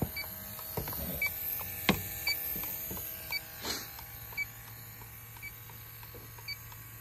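Electronic refrigerant leak detector ticking slowly and evenly, about once a second, over a low steady hum, with a few knocks from handling. The unhurried tick is its resting rate: no leak found at the coil.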